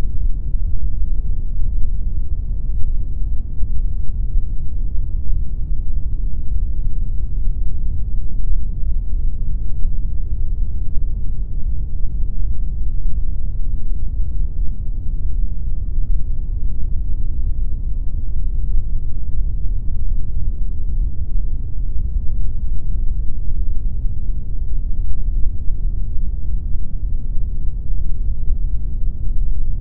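Steady synthetic pink noise: an even, deep rush with most of its weight in the bass and little treble.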